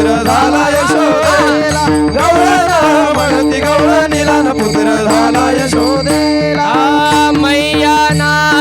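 Marathi kirtan music: a gavlan sung with winding vocal lines over a steady held drone, with hand drum strokes and the jingle of small hand cymbals keeping the beat.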